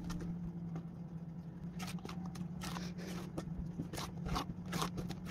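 Wire whisk stirring thick chocolate brownie batter in a mixing bowl: irregular soft clicks and scrapes against the bowl, more frequent in the second half, over a steady low hum.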